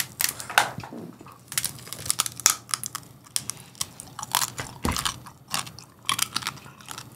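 Crisp fried chicharrones (pork skin with meat) being broken apart and chewed close to the microphones: a run of sharp, irregular crunches, with one duller thump about five seconds in.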